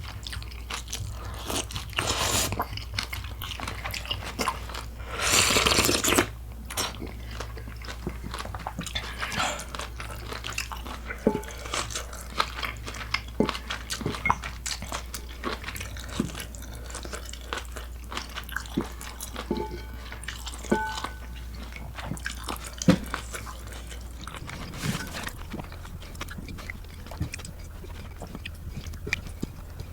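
Close-miked eating: crunching and chewing of food with many small clicks, and louder bursts of crunching about two and five seconds in.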